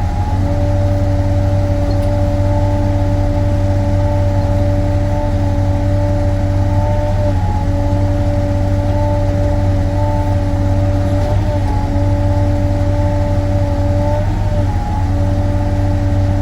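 Sany SY35U mini excavator's diesel engine running steadily under load while digging, a constant low drone with a steady whine of several pitched tones that dips and breaks briefly a few times.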